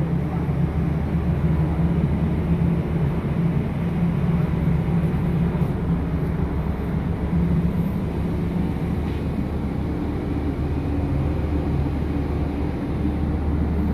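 Steady low drone of a ship's machinery running, heard on deck, with a constant hum and a wash of noise over it.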